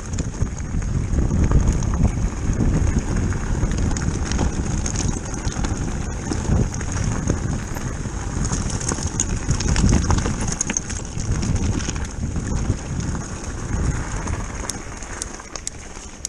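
Wind buffeting the camera microphone while a mountain bike rolls fast over a loose stony track, tyres crunching on gravel with small clicks and rattles, over a steady faint high whine. It eases off near the end as the bike slows.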